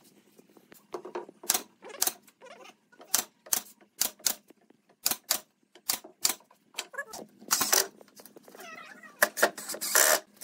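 Pneumatic brad nailer firing a string of sharp shots into pine sofa boards, then a cordless impact driver rattling in longer bursts near the end as it drives screws into the seat slats.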